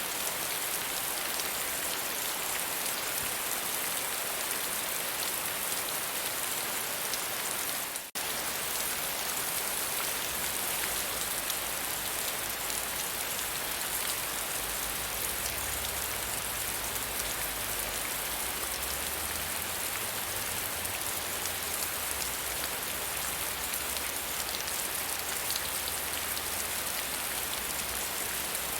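Soft rain falling steadily, an even hiss of many small drops. The sound dips for an instant about eight seconds in, and a faint low rumble sits underneath after that.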